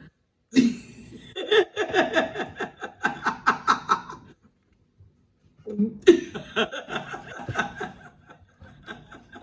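A woman laughing in two bouts of quick, repeated laughs, each a few seconds long, with a short pause between them.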